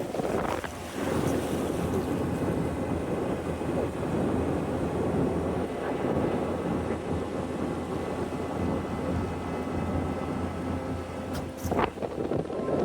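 Kawasaki Mule side-by-side running steadily on the move, with wind buffeting the microphone. There is a short knock near the end.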